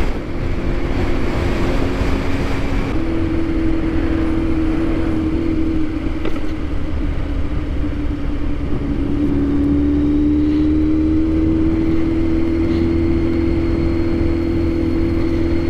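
Kawasaki Z900's inline-four engine running at a steady cruise under heavy wind rush on a helmet microphone, its note rising a little about nine seconds in. A few faint clicks come through, the ticking the rider hears only while moving, which he likens to valves and suspects is a loose exhaust.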